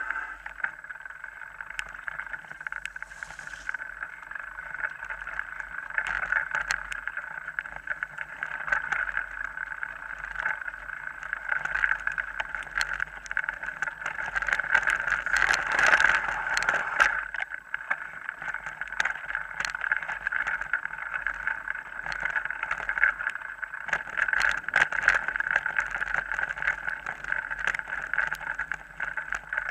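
Mountain bike riding over a rough dirt track, heard close up: a steady rushing of wind and tyres with frequent sharp knocks and rattles from bumps, louder about halfway through.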